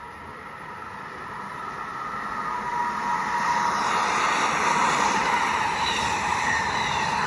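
A LEGO train runs on plastic LEGO track, approaching and passing close by: a small electric motor whine with wheels rolling, growing louder over the first few seconds and then holding steady.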